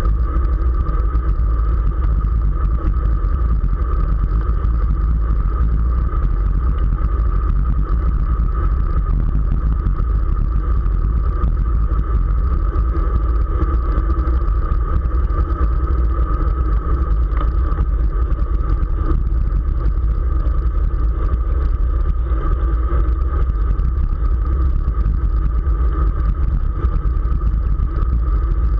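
Steady wind rumble on the microphone of a camera riding along on a road racing bicycle at speed, with an even hum above it that does not change.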